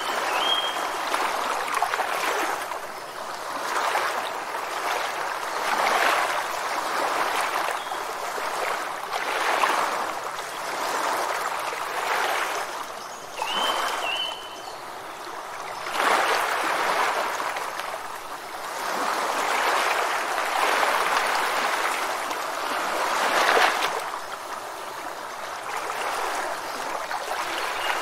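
Surf breaking and washing over rocks: a steady rush of water that swells and eases every few seconds. A bird gives a short double chirp twice, just after the start and again about halfway.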